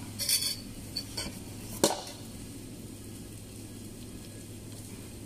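Wooden spoon stirring and scraping a rice and ground-beef filling in a stainless steel bowl, in a few short scrapes ending in a sharp knock near two seconds in. After that, only a steady low hum and a soft hiss.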